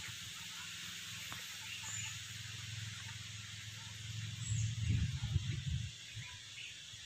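Outdoor garden ambience: a steady high hiss with a few faint bird chirps over it. A low rumble swells about four and a half seconds in and fades about a second and a half later.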